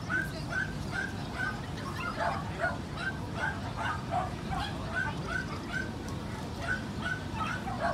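A dog yapping in a rapid run of short, high barks, about two or three a second, with a brief pause late on.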